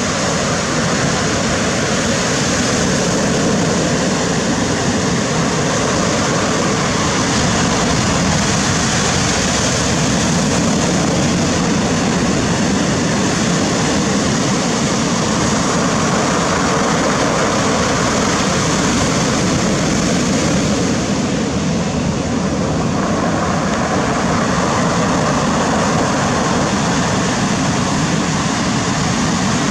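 Steady roar of ocean surf breaking and washing over a pebble beach.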